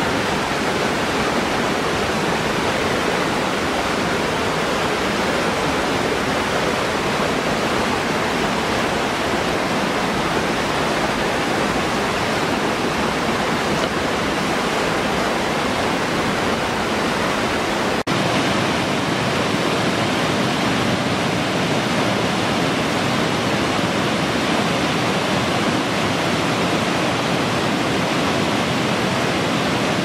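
Waterfall pouring over rocks into a pool: a loud, steady rushing of water. About eighteen seconds in, the rush changes abruptly to a similar one with less low rumble.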